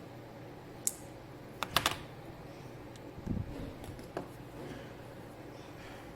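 Small hard objects handled on a work surface: a sharp click, then a quick run of three clicks, a dull knock and one more click.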